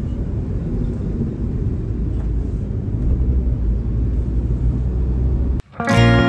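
Steady low rumble of road and engine noise inside a moving car's cabin. Near the end it cuts off abruptly and strummed acoustic guitar music starts.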